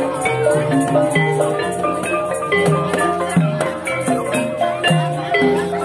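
Live Javanese gamelan, unamplified: metal keyed instruments ring out a stepwise melody of sustained notes over kendang drum strokes.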